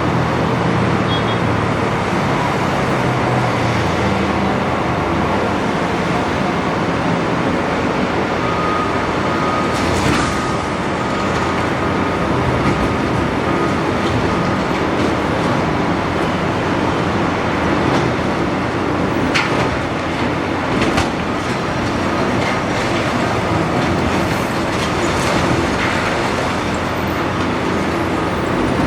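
Big Doosan excavator's diesel engine and hydraulics running steadily, with a few sharp knocks scattered through and a thin high whine for several seconds near the middle.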